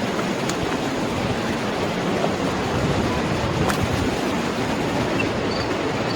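Steady rush of the Niagara River's whitewater rapids, an even unbroken roar, with a few short high chirps near the end.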